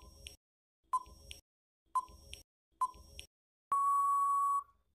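Countdown timer sound effect: four short beeps about a second apart, then one longer steady beep near the end as the time runs out.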